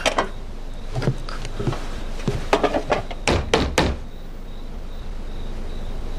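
Knocking on a wooden door, a few knocks at a time in several short groups, then a pause.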